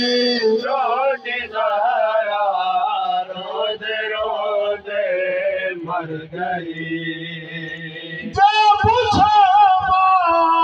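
Men's voices chanting a noha, a Shia lament sung in a wavering melody into handheld microphones. The singing grows louder and fuller about eight seconds in.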